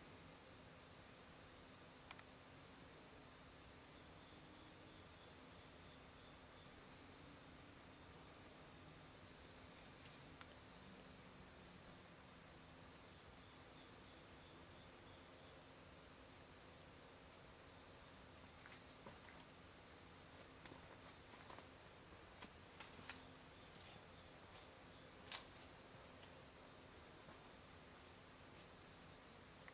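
Faint night chorus of crickets: a steady high trill with an overlapping high chirp pulsing about twice a second. A few faint clicks come about three-quarters of the way through.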